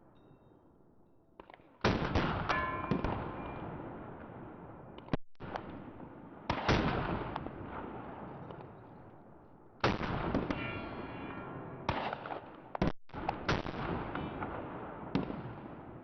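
Gunshots: about a dozen shots at irregular intervals, some in quick pairs, each followed by a long echoing decay.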